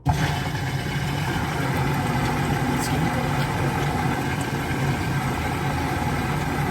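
Frigidaire/Electrolux front-loading washing machine running with its door removed: a steady machine hum and noise that starts suddenly and holds evenly.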